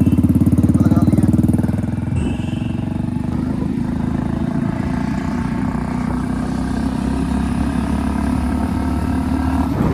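Modified single-cylinder Hero Splendor motorcycle with an RX-style aftermarket silencer, ridden with a loud pulsing exhaust note. It is revved harder for the first two seconds, then settles to a steady cruise.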